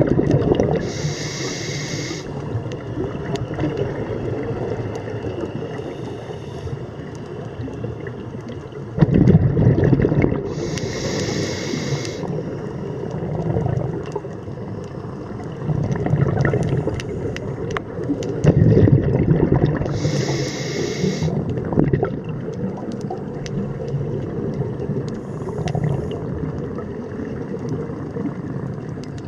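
Scuba diver breathing through a regulator underwater: three hissing inhalations about nine seconds apart, each coming just after a loud bubbling burst of exhaled air, over a steady low underwater rumble.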